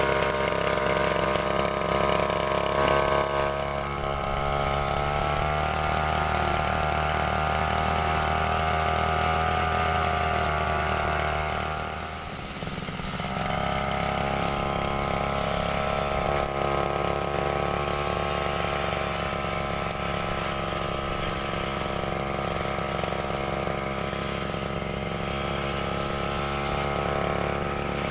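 STIHL FR 3001 brush cutter engine running at a steady speed. About twelve seconds in its speed drops briefly, then picks back up.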